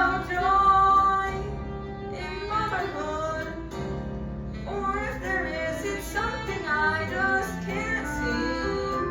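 A woman singing a song with instrumental accompaniment.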